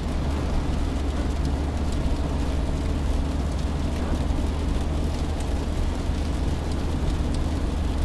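Car driving in rain at about 60 km/h with the windows closed, heard from inside: a steady low rumble of engine and road under the hiss of rain and wet tyres, with faint small ticks.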